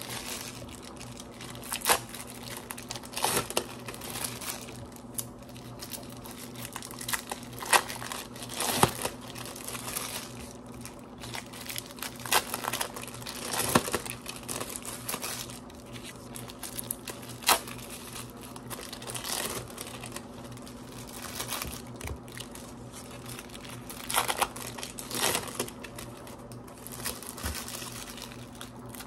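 Thin plastic wrappers of individually wrapped processed cheese slices crinkling as they are peeled open one after another, in irregular crackles, over a faint steady low hum.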